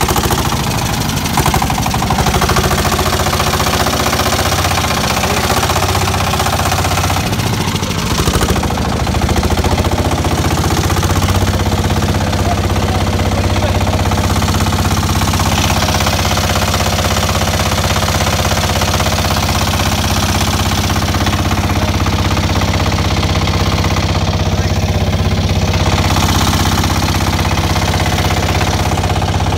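A boat's diesel engine runs with a rapid knocking beat. Its speed shifts during the first several seconds, then holds steady.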